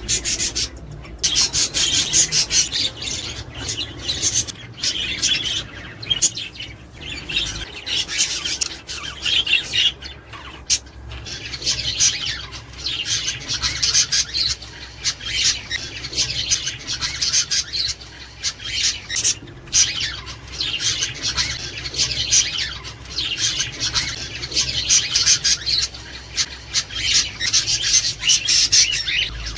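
Budgerigars chattering and warbling: a dense, continuous stream of high-pitched chatter with only brief pauses.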